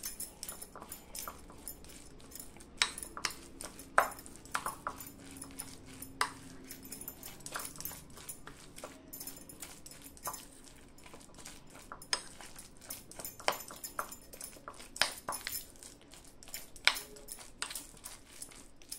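A steel spoon stirring a thick, coarse moong dal pakoda batter in a ceramic bowl: irregular clinks and scrapes of the spoon against the bowl.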